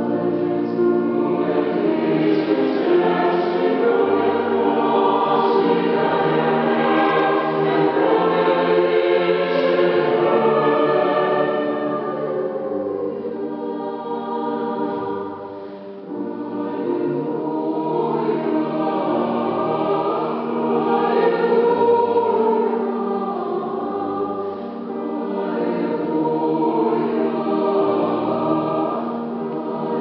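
A choir singing a piece in several parts, swelling and easing, with a brief drop in loudness about halfway through.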